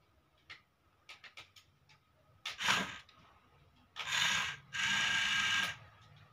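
Toy excavator's small electric motor and gears whirring in two short runs about four and five seconds in, after a few light clicks and a brief scrape.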